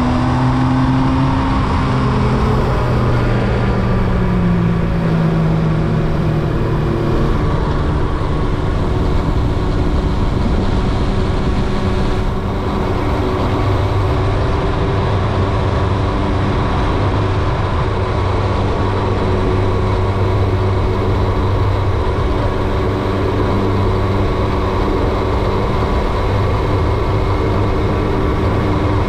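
Carburetted Yamaha YZF R1's inline-four engine under way: its pitch falls over the first few seconds as it slows, then holds steady as it cruises.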